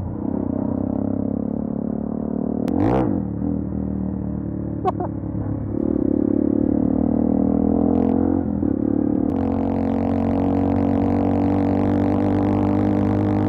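Motorcycle engine running under way, its droning note falling and rising a few times as the revs change. From about nine seconds in, a rush of wind noise joins it.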